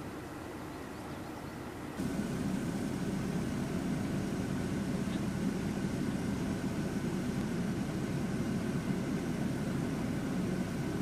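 Steady vehicle rumble and hiss that steps up louder about two seconds in and then holds.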